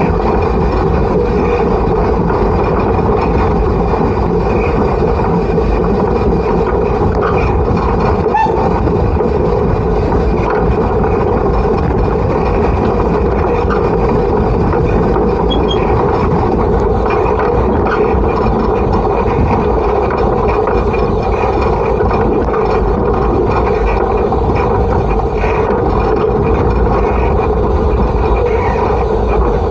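Peckett Class B3 industrial steam locomotive running along the line, heard close from its own coal bunker: a steady, loud mechanical rumble of the engine and its wheels on the rails.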